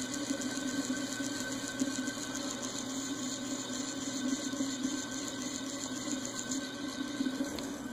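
Evergo Emperor ceiling fan motor running steadily on low speed, a constant hum with a high hiss from its dry, noisy bearings, which have just been worked with WD-40. The owner places the noise in the bottom bearing.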